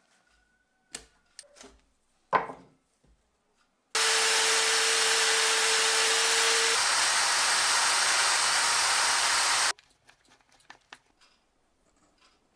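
A few light knocks of metal parts being handled, then a loud, steady hiss of a compressed-air shop tool running for about six seconds. The hiss starts and stops abruptly, with a faint steady tone under it for its first half.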